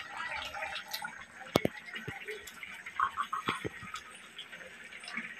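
A metal spoon clinks against an aluminium pan of boiling sponge-gourd soup, one sharp click standing out, over a soft steady bubbling. A quick run of short chirping clicks follows a little after the middle.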